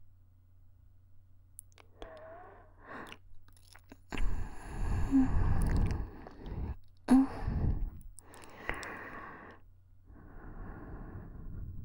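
A woman's breathing close to a KU100 binaural dummy-head microphone: about six soft breaths in and out, the longest and loudest a drawn-out breath a little past the middle, with a faint steady hum underneath.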